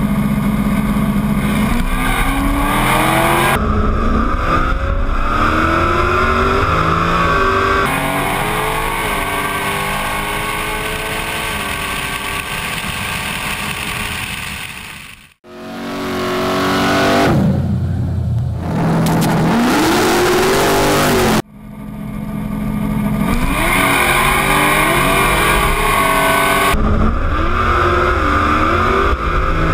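Two built, nitrous-fed fourth-generation Chevrolet Camaros with TH400 automatics, accelerating hard side by side. Their engines rise in pitch, drop at each gear shift and climb again several times. The sound cuts off sharply twice, about halfway through and again some six seconds later, as separate runs are spliced together.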